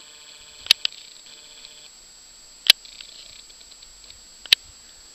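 Sharp clicks over a faint steady hiss: a quick double click about a second in, then single clicks about two seconds apart after it.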